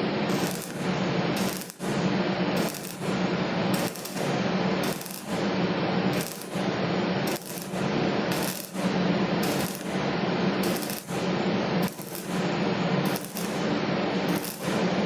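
Stick (arc) welding: the electrode's arc crackling and sizzling steadily over a low hum, swelling and dipping slightly about once or twice a second.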